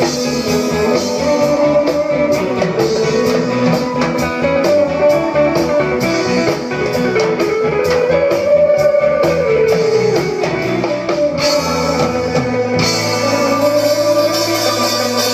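Live rock band playing an instrumental passage without vocals: guitar carries the tune over bass and drums, and the texture shifts about 13 seconds in.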